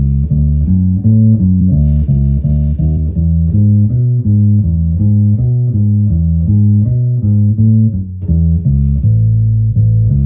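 Birdsong Hy5 electric bass with D'Addario Chromes flatwound strings, played on the neck pickup alone with the tone rolled back about halfway: a repeating lick of quick plucked notes, ending on a long held note. A faint rattle of doors and windows in the room sounds along with the notes.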